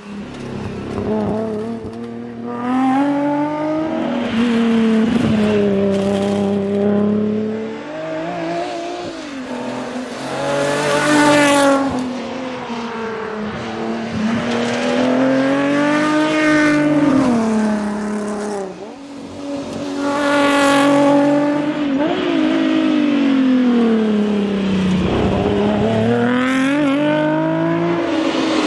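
Datsun S30 Z rally car's engine running loud under hard driving, its pitch climbing through the revs and dropping again many times as it accelerates, lifts and changes gear through a run of corners.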